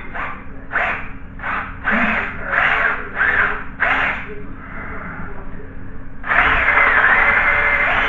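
A run of short harsh strokes, about two a second, for the first four seconds, then a power drill starts abruptly about six seconds in and runs steadily, boring a cable hole through wood.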